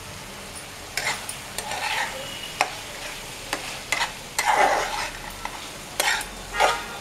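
Spatula stirring and scraping prawn curry around a nonstick pan: a run of irregular scrapes starting about a second in, over a low steady sizzle of the curry cooking.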